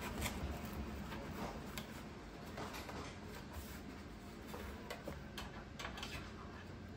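Light, irregular clicks and rustles of hands handling paper inserts and doll clothes in a cardboard box's compartments.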